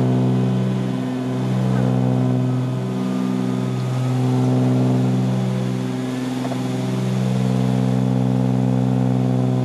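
Twin piston engines of a Cessna 310Q (Continental six-cylinders) droning at climb power just after takeoff, heard from inside the cockpit. The steady low hum swells and eases slowly every second or two.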